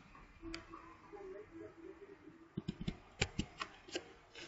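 Computer keyboard keystrokes: a single click, then a quick run of about eight clicks near the end.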